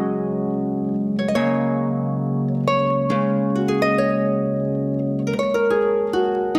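Concert harp played through an EarthQuaker Devices Ledges reverb pedal: a few plucked notes and chords, then a quicker cluster of notes near the end, each ringing on into the next in a long reverb wash.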